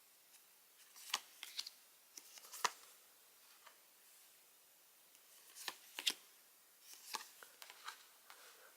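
Stiff photo cards being handled and flipped through: short, sharp clicks and slaps in three quick clusters, about a second in, around five and a half seconds, and again around seven seconds.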